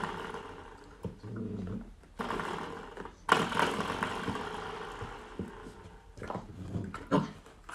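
A puppy growling in several rough bouts, the longest and loudest about three seconds in, as it plays at pouncing on a small object.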